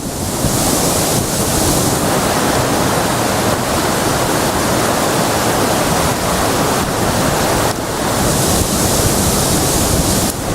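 River water pouring over a weir in high flow after a typhoon: a loud, steady rush.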